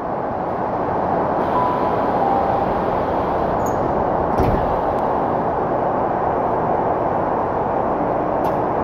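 Steady running noise inside a Tokyu 5050-series commuter train car at a station stop, with the sliding doors shutting in a single knock and thud about four and a half seconds in. Two short, faint falling tones sound a few seconds before the doors close.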